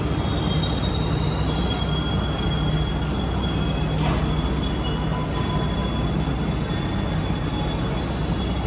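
A train moving on the tracks: a steady rumble with thin, high-pitched squealing from the steel wheels on the rails.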